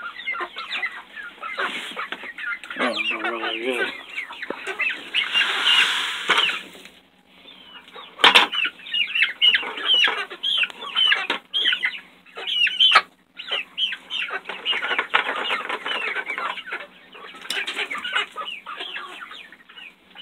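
A crowded flock of chickens clucking and calling without pause. About five seconds in there is a brief rush of noise, and a few sharp knocks follow a little later.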